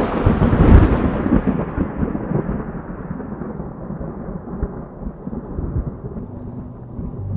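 Thunderclap: a loud crack peaking about a second in, then a long rolling rumble that slowly dies away. A low steady tone comes in near the end.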